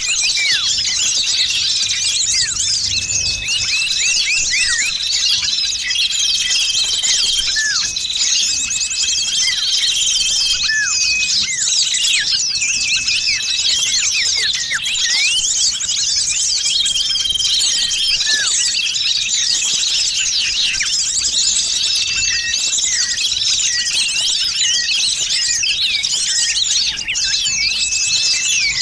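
Dense, busy chorus of many small songbirds chirping and twittering at once, quick high chirps and short held whistles overlapping without a break: a noisy small-bird lure recording used to draw birds in.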